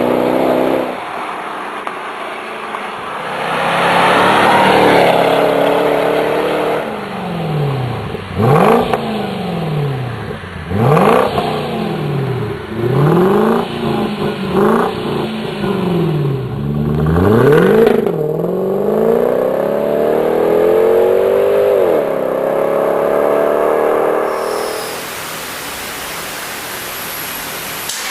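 Jaguar XKR 4.2's supercharged V8 through a QuickSilver sport exhaust, revved hard in a run of short, sharp blips that rise and drop back. After them comes a longer climb in revs held for a few seconds and then falling away, and the engine settles to a steadier sound near the end.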